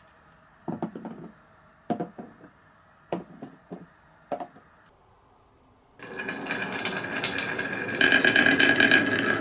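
Glass marbles clicking and knocking on a wooden marble-run track, a few separate clacks at a time. About six seconds in, a loud continuous rattling clatter starts, as of many marbles running together, and grows louder near the end.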